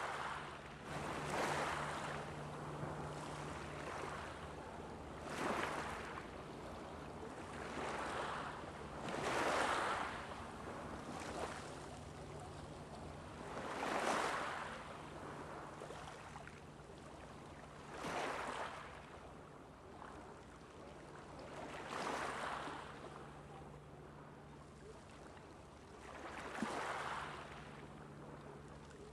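Small waves breaking and washing on a shoreline, a fresh swell of surf every few seconds, over a steady low hum.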